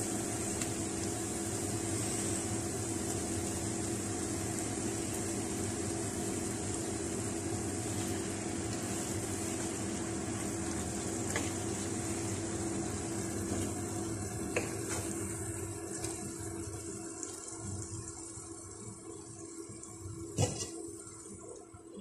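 Fish and onion-tomato masala sizzling steadily in a non-stick frying pan, with a steady low hum underneath and a few light taps of a wooden spatula against the pan. The sizzle fades over the last several seconds.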